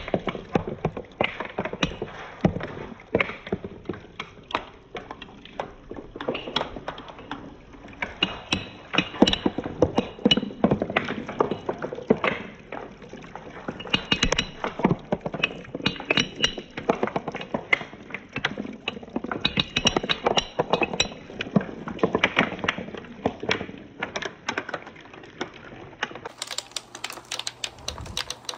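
Marbles clattering down a handmade wooden marble run: a dense, irregular stream of clicks and knocks.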